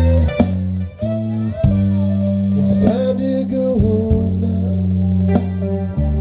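Music on guitar and bass guitar, the bass holding notes that change every second or so.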